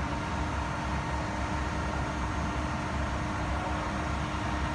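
Favretto grinder's Y axis jogging in the minus direction: a steady, single-pitch drive whine over the constant hum of the running machine.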